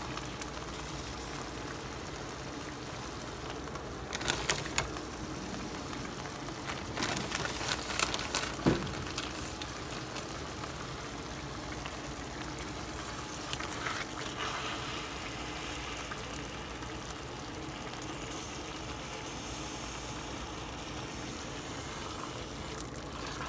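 Pan of ground beef, rice and tomato sauce simmering steadily on the stovetop. A few clicks and scrapes of a spatula against the pan come as shredded cheese is stirred in, the sharpest about nine seconds in.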